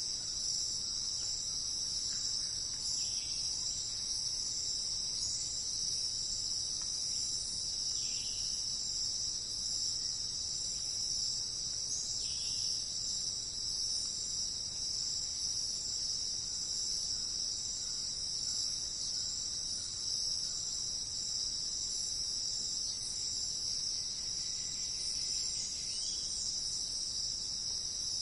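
Steady, unbroken high-pitched chorus of insects such as crickets, with a few faint short calls below it in the first half.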